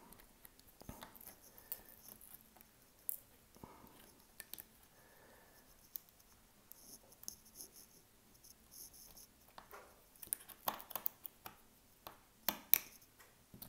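Faint, scattered clicking, scratching and crackling of shattered iPhone 13 back glass being picked and scraped off the phone. The clicks come thicker near the end.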